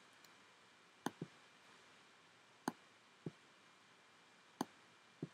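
Faint computer mouse clicks over a low hiss: three crisp clicks, each followed shortly by a duller, softer one.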